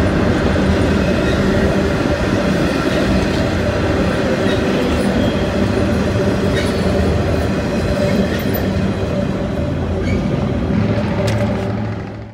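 Norfolk Southern intermodal freight train's flatcars carrying highway trailers rolling past. There is a steady rumble of wheels on rail with occasional clicks over the joints, and the sound fades out sharply at the end.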